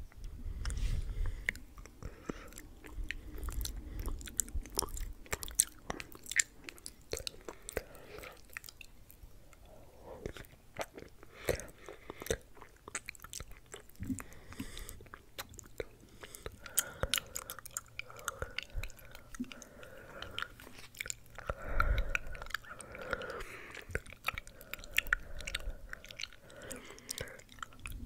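Close-miked mouth sounds: a dense, irregular run of wet clicks and smacks with chewing, and a few soft low bumps on the microphone.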